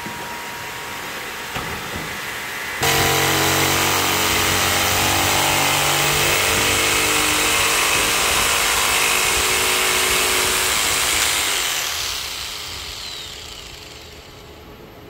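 Makita jigsaw cutting through a wooden board, starting abruptly about three seconds in and running loud and steady for about eight seconds, then fading away as the cut finishes. Before it there is a quieter steady machine sound.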